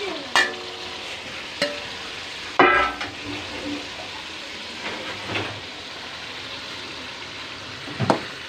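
Chicken pieces sizzling as they fry in a steel karahi, a steady hiss broken by five ringing metallic clanks of a steel bowl and spoon knocking against the pan, the loudest about two and a half seconds in.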